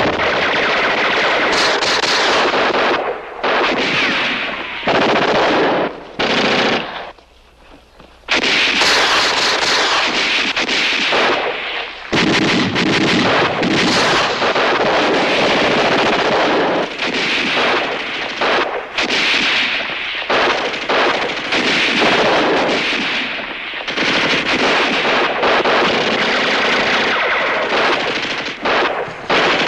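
Gunfire in a firefight: near-continuous bursts of automatic small-arms fire mixed with single shots, with a brief lull about seven seconds in before the firing resumes.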